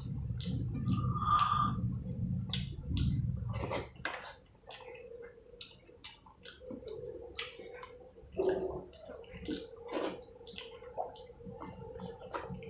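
Close-up eating sounds: wet chewing, smacking and squishing of mouthfuls of rice and curry, in many short sharp clicks. A low rumble runs under the first few seconds, and a faint steady hum sits underneath from about halfway through.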